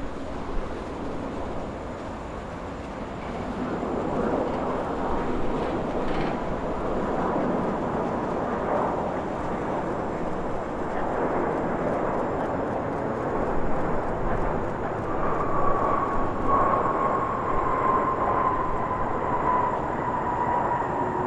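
Airbus A350-900 jet airliner passing by, its Rolls-Royce Trent XWB engines making a steady rushing jet noise. About 15 seconds in, a whining engine tone appears and slowly drops in pitch as the aircraft goes past.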